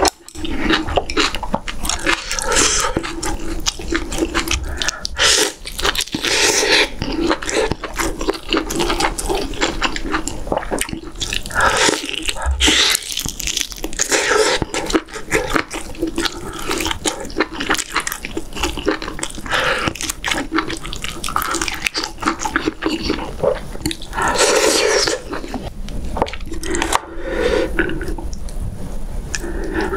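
Close-miked wet chewing and slurping of beef rib doenjang stew: irregular squelching mouth sounds as broth and tender rib meat are eaten and meat is gnawed off the bone.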